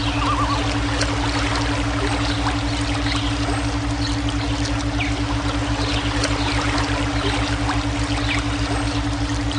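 Running water pouring and trickling, layered with a steady low pulsing hum of a brainwave tone, and scattered short high chirps.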